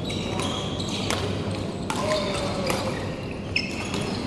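Badminton play across several courts in a large sports hall: sharp racket-on-shuttlecock hits and short squeaks of court shoes on the floor, over a low steady hall hum and faint voices.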